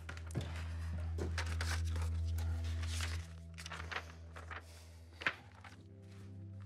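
Paper and objects on a bookshelf rustling and shuffling in short irregular bursts as a sheet of paper is searched out and handled, with one sharper click about five seconds in, over a low steady hum.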